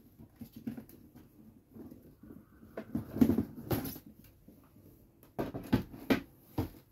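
A glossy cardboard gift box being handled and opened: cardboard scraping and rubbing as the lid is worked off in the middle, then a few sharp knocks near the end.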